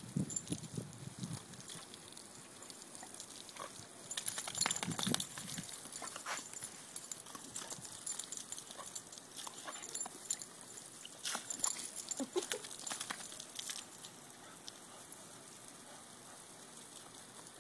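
A puppy biting and snapping at water spraying from a garden hose onto grass: a steady hiss of spray, with bursts of splashing, heaviest around five seconds in and again around twelve seconds in.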